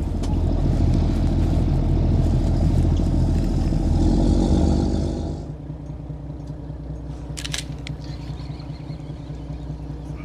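Fishing boat's engine running with a steady low rumble and a hiss over it, dropping abruptly about five seconds in to a quieter steady hum. A couple of short sharp clicks come about halfway through the quieter part.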